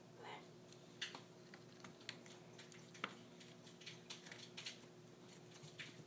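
Kittens playing: scattered light taps and scratches of small paws and claws on cardboard, floor and a fabric play tunnel, with two sharper knocks about one and three seconds in. A faint steady hum lies underneath.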